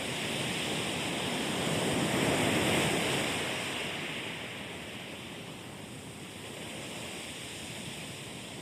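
Ocean waves: a swell of surf builds to a peak about two to three seconds in and then washes back, with a smaller rise near the end.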